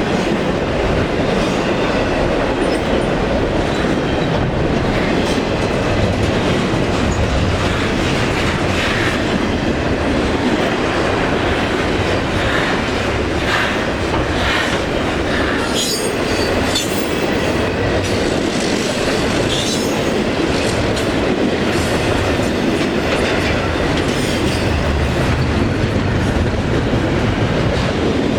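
A train's cars rolling past close by, wheels clacking over the rail joints in a steady loud rumble, with brief high-pitched wheel squeals about halfway through.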